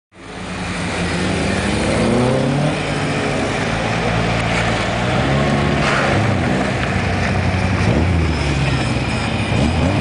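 Competition car engines revving hard and easing off again and again as the cars accelerate and brake through a slalom course; the exhaust note rises and falls in pitch throughout.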